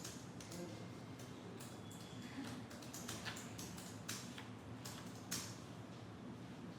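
Office room tone: a steady low hum with scattered small clicks and taps of desk activity, the sharpest knock about five seconds in.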